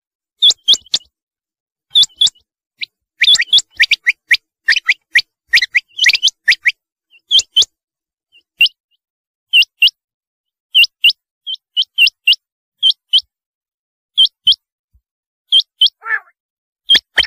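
Rain quail calling: sharp, high notes, mostly in quick pairs, repeated every second or so, with a faster, denser run of notes between about three and six seconds in.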